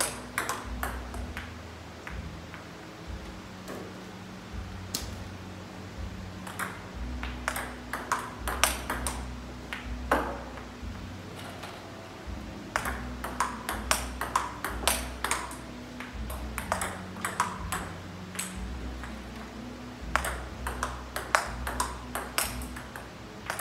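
Celluloid-type table tennis balls clicking sharply off paddles and the table in quick runs of hits, with short pauses between runs as balls are fed one after another from a basket in a multi-ball drill. A steady low hum runs underneath.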